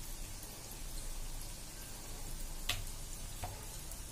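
Coated chicken legs deep-frying in hot oil on a low gas flame: steady, even sizzling. A sharp tick comes about two and a half seconds in and a fainter one a little later.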